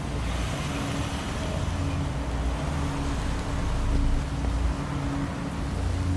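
Steady low outdoor rumble with faint low tones drifting in and out.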